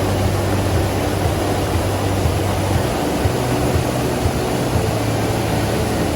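Heavy, fast-flowing water rushing over the top of a waterfall swollen with snowmelt: a loud, steady roar with a deep rumble underneath.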